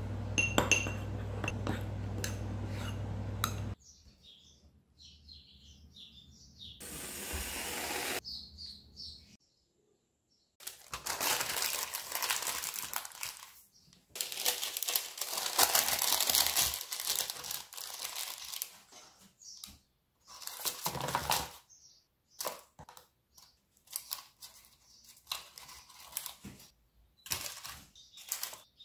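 For about the first four seconds, a metal spoon scrapes and clinks against a ceramic ramekin while stirring batter, over a steady low hum that then cuts off. Later comes long paper-towel rustling and crinkling in plastic lunchbox containers, and near the end light taps as pieces of food are dropped into the plastic.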